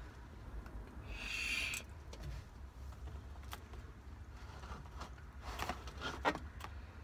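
Quiet handling noise inside a car: faint rustles and small clicks, with a short breathy hiss about a second in.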